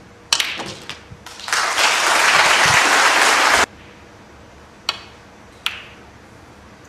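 Audience applauding, the applause stopping abruptly about three and a half seconds in. Then come two sharp clacks of snooker balls under a second apart as the break-off is played: the cue striking the cue ball, then the cue ball hitting the pack of reds.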